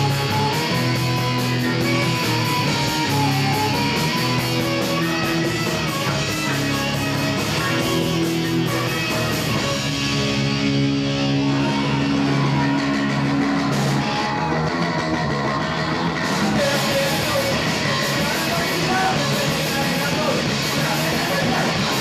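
A loud live rock band playing: electric guitar chords over drums and cymbals. About ten seconds in, the cymbals drop away under held guitar notes, and the full band comes back a few seconds later.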